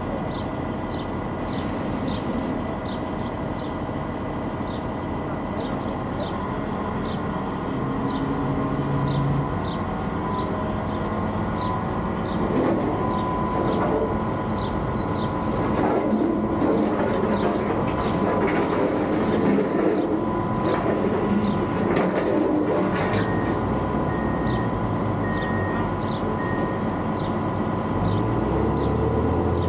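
Heavy diesel machinery running steadily, with a faint regular ticking over it and rougher, louder stretches midway. A deeper engine note comes in near the end as a forklift drives up.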